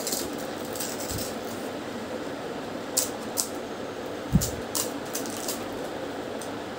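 Crisp fried fuchka (pani puri) shells being cracked open by hand and eaten: a handful of short, sharp crunches and clicks between about three and five and a half seconds in. The one at about four and a half seconds comes with a soft thump.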